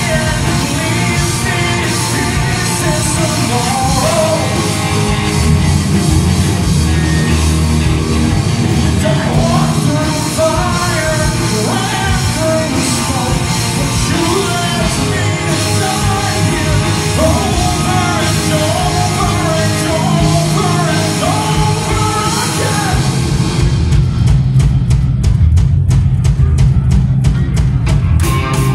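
Live rock band playing loudly: electric guitars and a drum kit with a singer over them. Near the end the high end drops away and the band plays a run of short, evenly spaced hits.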